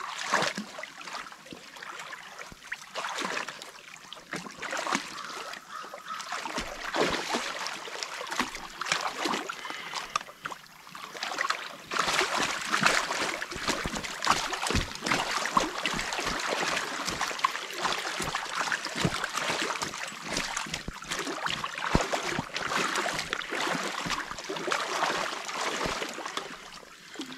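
Water splashing and trickling through a torn-out beaver dam, broken by many irregular splashes and knocks that grow busier and louder about halfway through.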